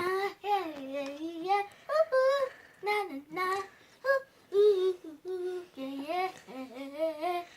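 A young girl singing unaccompanied, holding notes that slide up and down in short phrases.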